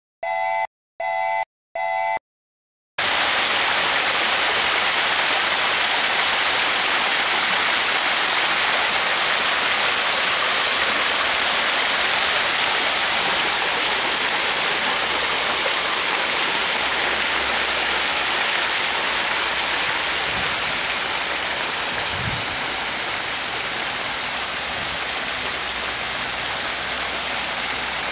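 A few short electronic beeps, then steady rain falling on garden plants and foliage: a dense, even hiss.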